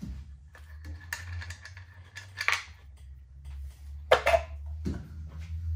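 Light metallic clinks and rattles of hand tools and small parts such as a bolt and nut being handled, the sharpest clink about four seconds in, over a steady low hum.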